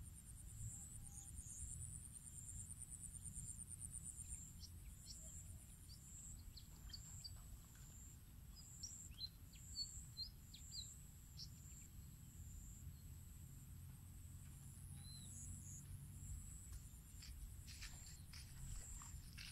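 Faint outdoor ambience of a wet rice field: scattered short bird chirps, most of them in the middle, over a steady high insect buzz and a low rumble, with a few faint ticks near the end.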